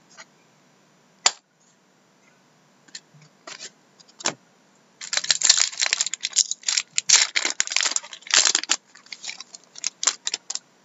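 A foil trading-card pack being torn open and its wrapper crinkled, a dense crackling run of about four seconds past the middle. Before it come a few scattered clicks of cards being handled, and near the end light clicks as the cards are fanned through.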